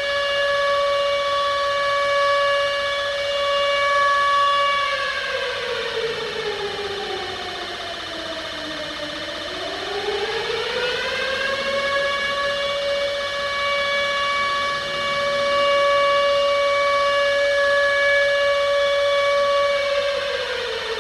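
Civil defence air-raid siren sounding a single pitched tone. It holds steady, falls away about five seconds in, swoops back up a few seconds later and holds again, then starts to fall once more near the end.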